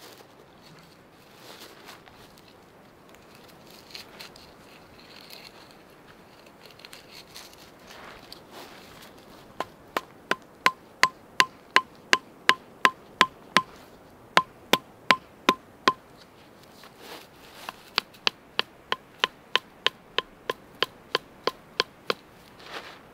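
A hatchet head knocking carved wooden tent stakes into the ground, about three sharp strikes a second, each with a short ringing note. The strikes come in three runs with short pauses between them, after several seconds of quiet rustling.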